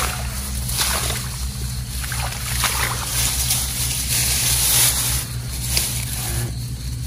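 Water sloshing and splashing in uneven surges as an eel trap is handled in shallow water, over a steady low hum.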